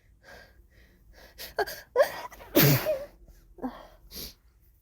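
A woman's short hitching gasps as a sneeze builds, then one loud sneeze about two and a half seconds in, with a breathy vocal tail after it.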